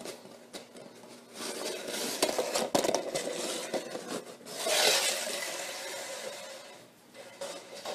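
A German Shepherd puppy knocking a metal object about on a tiled floor: a run of clinks, knocks and scrapes, with a louder rush of noise about five seconds in.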